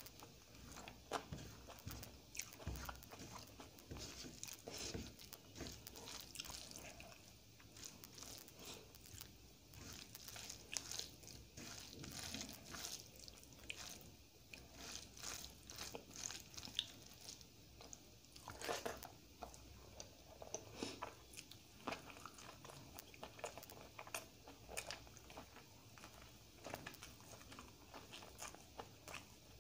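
Close-miked eating by hand: wet mixing and scooping of dal, rice and egg fry on the plate, with many short chewing and biting sounds. Near the end comes a bite into a battered, fried chilli fritter (mirchi bajji).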